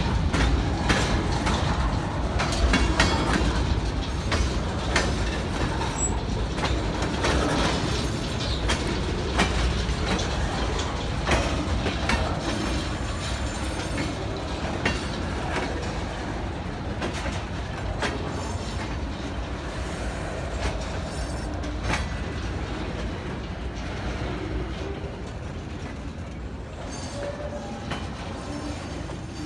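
Freight train of empty centerbeam flatcars rolling past, steel wheels clicking and clacking on the rails over a steady rumble. The sound gradually gets quieter.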